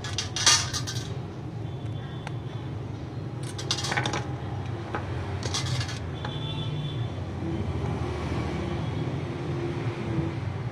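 Light metallic clinks and clatter, three short bouts, over a steady hum of street traffic with faint distant horns.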